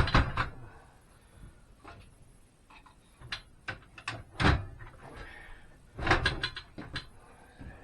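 A string of clunks and clicks from the sliding miter saw being handled and latched onto its stand, with the loudest thud about four and a half seconds in and a quick cluster of clicks near the end.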